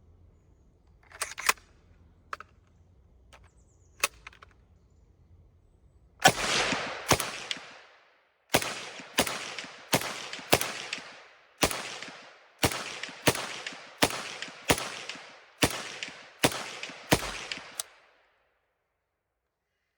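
Zastava M56 submachine gun in 7.62x25 mm Tokarev fired semi-automatically: about fifteen single shots in a steady string, roughly one every half second to second, each with a ringing tail. A few sharp clicks come before the first shot.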